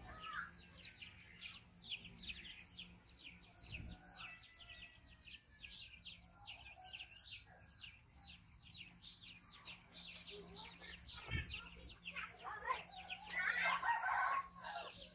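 Chickens calling: a steady run of quick, high chirps, several a second, with a louder, lower call about two seconds before the end.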